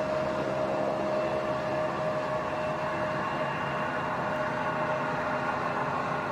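Steady drone of a helicopter in flight: an even rushing noise with a constant hum and a faint high whine, unchanging throughout.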